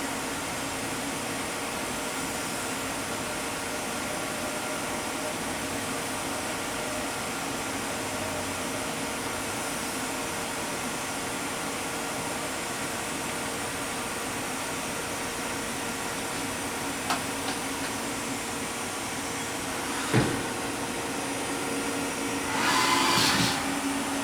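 Haas HS-1 horizontal machining center running with a steady hum and a held whine while its fourth (A) rotary axis homes. The whine stops with a sharp clunk about 20 seconds in, and a short hiss follows near the end, just before the machine reports itself homed.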